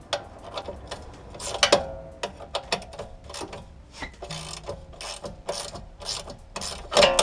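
Socket ratchet clicking in short, uneven runs of strokes as a suspension bolt is worked on a Nissan 240SX, with a spanner held on the other end. The loudest clicks come about a second and a half in and near the end.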